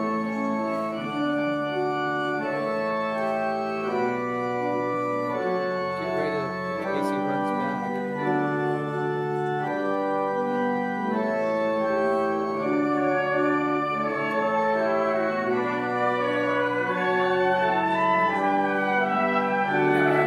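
Organ music playing slow, held chords that change every second or two.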